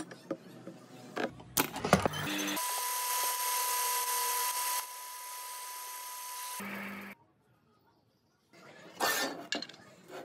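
Knocks and clicks of parts being handled, then a small power tool runs steadily with a high whine for about four seconds, dropping in level partway and cutting off. After a short pause comes more clatter of parts.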